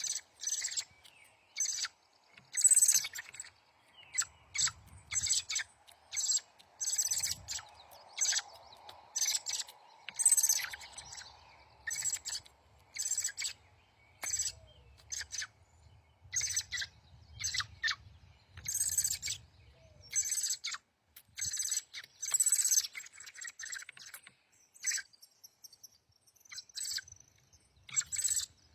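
A small songbird giving a long series of short, sharp, high chip calls, about one or two a second, with brief pauses.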